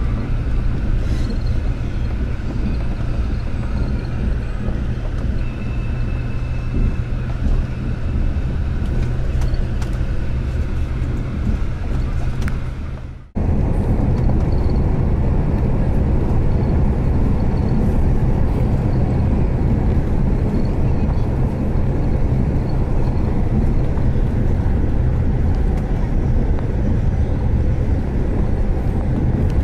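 Steady rumble of a vehicle driving along a road, engine and road noise together. It cuts off abruptly about thirteen seconds in and picks up again at once.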